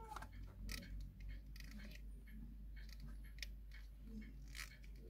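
Irregular light clicks and scrapes of a small Wehrle alarm clock and its hinged case being handled and turned over in the hands.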